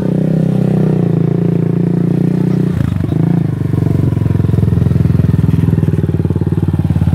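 Sport quad (ATV) engine running at low revs with a steady, even beat. About three seconds in it drops to a lower, more clearly pulsing chug as the quad moves off slowly.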